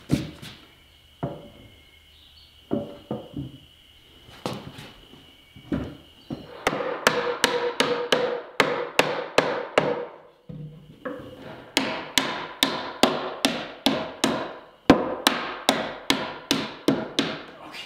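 A rubber mallet knocking a cherry side panel onto a cupboard carcass to seat its joints. It starts with a few scattered knocks, then strikes steadily at about three a second, with a short pause about two-thirds of the way in.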